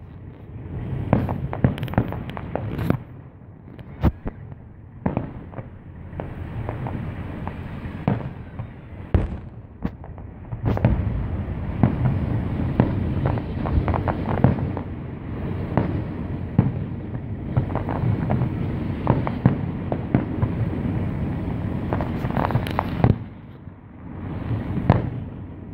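Fireworks display: aerial shells bursting in quick succession, sharp bangs over a continuous rumble, with a short lull near the end.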